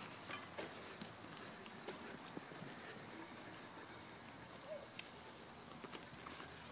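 Faint scattered ticks and crunches of a child's mountain bike rolling over a dirt forest trail, with the footfalls of someone following on foot. A short, high double chirp about three and a half seconds in.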